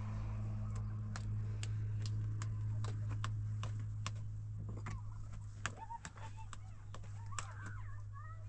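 Sharp taps or ticks repeating about three times a second, turning irregular after about five seconds, over a steady low hum, with short bird-like chirps in the second half.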